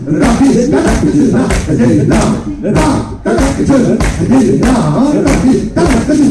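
Live fusion band performing a rhythmic vocal passage: a voice singing or chanting quick syllables over sharp percussive hits, about two a second.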